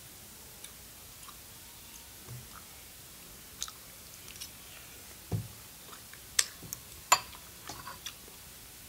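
Close-up eating sounds: chewing a mouthful of noodles, with scattered short sharp smacks and clicks. The clicks come larger and more often in the second half.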